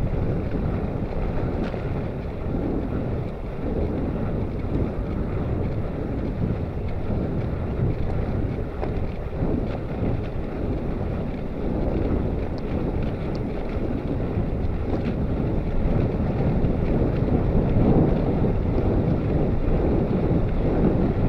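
Wind buffeting the microphone while cycling: a steady low rumble that grows a little louder after the middle.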